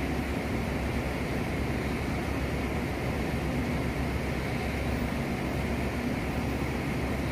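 Steady low mechanical drone with a faint hum, unchanging throughout.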